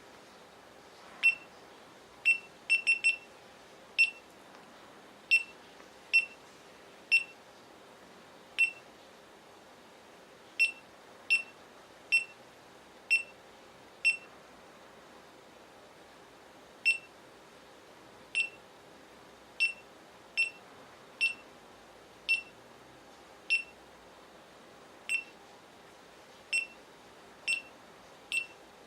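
GoPro Hero3+ camera's built-in beeper giving about two dozen short, high-pitched confirmation beeps at irregular intervals, with a quick run of three or four about three seconds in, as its buttons are pressed to step through the menus.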